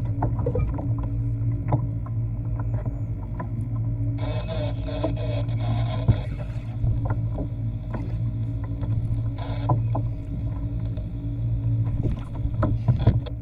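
Water sloshing against a fishing kayak's hull at sea over a steady low hum, with scattered knocks and a few stretches of rougher hissing noise.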